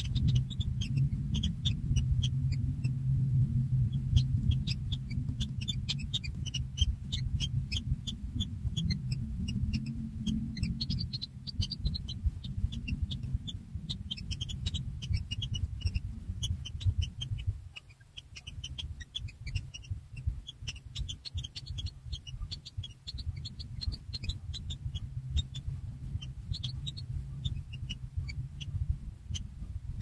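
Nestling birds in a burrow nest giving many short, high chirps several times a second, with a low rumble underneath that fades about two-thirds of the way through.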